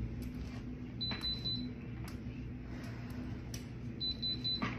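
Heat press with a tumbler attachment beeping its timer alarm: two clusters of rapid high beeps, about a second in and again near the end, signalling that the pressing time is up. A steady low hum and a few faint knocks sit underneath.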